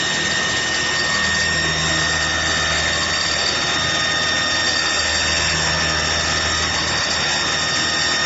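CNC milling spindle running and cutting a metal tube profile: a steady, high-pitched whine over an even cutting noise and a low hum.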